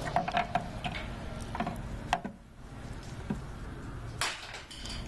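Small plastic clicks and rattles as a Ford Taurus headlamp bulb socket and its wiring connector are handled, with a run of clicks in the first two seconds and a brief rustle about four seconds in.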